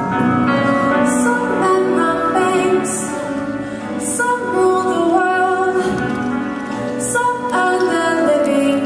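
A slow, tender show tune played live by a small band of keyboards and drums, with a female voice singing long, held notes.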